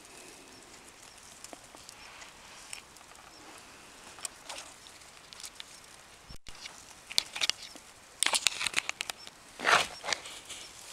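Dry grass and twigs rustling and crackling as a person pushes through brush, with clothing rubbing close by. Faint at first, then a thick run of sharp crackles and rustles in the last few seconds, loudest near the end.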